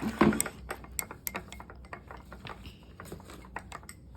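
A utensil stirring a slime mixture in a container, clicking and tapping irregularly against its sides, with a louder knock just after the start.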